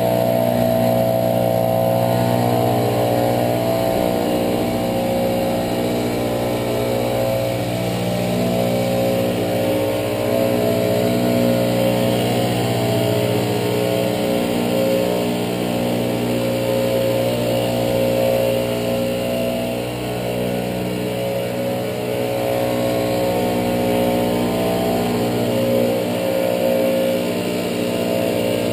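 Gas-powered backpack leaf blower running steadily, its engine note wavering slightly up and down in pitch.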